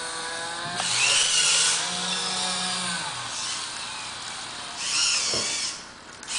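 Servo motors in a 3D-printed robot arm whining as they drive the arm and hand through a scripted move. The whine swells louder twice, about a second in and again near the end, with the pitch gliding as the motors speed up and slow down.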